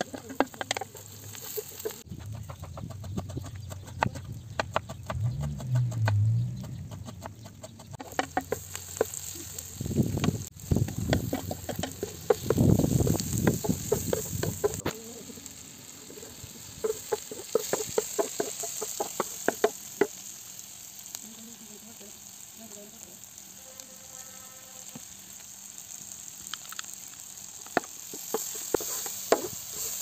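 Chopped onions, tomatoes and peppers sizzling in a large metal pan while a wooden spatula stirs them, scraping and clicking against the metal many times. Chickens cluck now and then.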